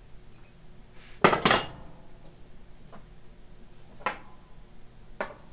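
Metal hand tools clanking against each other and the workbench as a speed wrench and sockets are handled: two sharp clanks close together about a second in, then lighter clinks near four seconds and near the end.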